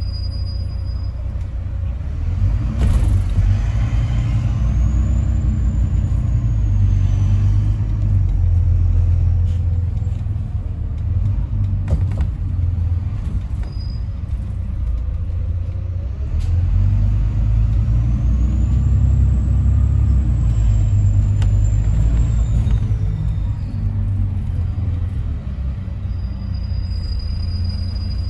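Double-decker bus heard from inside on the upper deck: the engine and drivetrain rumble steadily. The rumble swells twice, a few seconds in and again about halfway, as the bus speeds up, each time with a faint whine that rises and then falls.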